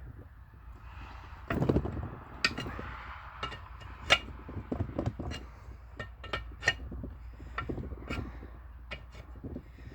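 Irregular metallic clicks and clinks of hand tools working a nut welded onto a broken stud, as the stud is being turned out. A duller, louder knock comes about a second and a half in.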